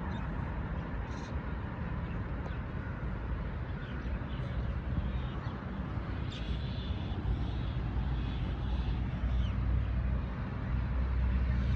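A group of birds giving short, high chirps, a cluster about six seconds in and a few more near nine seconds. Under them runs a steady low engine hum that grows louder toward the end.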